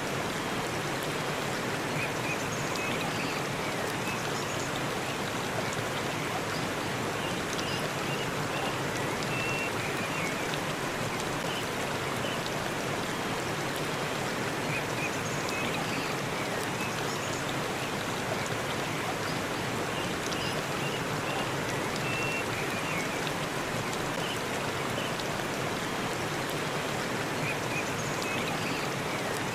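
Forest waterfall rushing steadily, with faint short high chirps now and then.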